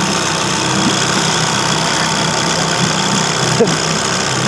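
Boat's outboard motor running steadily at low trolling speed, an even drone with a broad hiss over it. A short click about three and a half seconds in.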